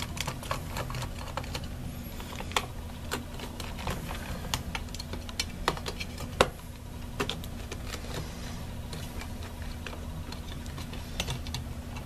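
Small irregular clicks and ticks of a Torx screwdriver and tiny screws as the T6 screws are worked out of a unibody Mac Mini's cooling fan, with a low steady hum beneath.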